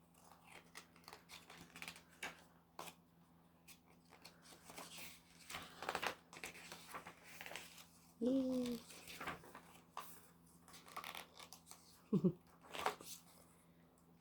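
Paper and plastic album packaging being handled: soft rustling with scattered small clicks and taps as the case, inserts and booklet are moved and opened.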